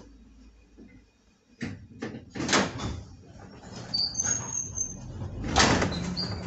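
London Underground 1972-stock train's air and brake equipment as the train recharges after passing a signal at danger: after a quiet start, a low rumble sets in and loud hisses of air burst out twice, with a brief high whistle between them.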